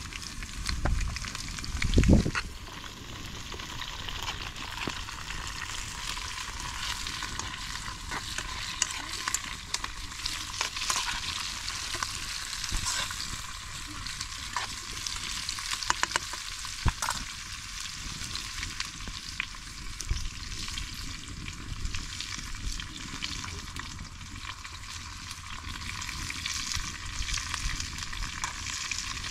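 Chopped carrots, green peppers and onion sizzling in oil in an open pot over a wood fire, with a spoon stirring and clinking in the pot now and then. A low thump about two seconds in is the loudest moment.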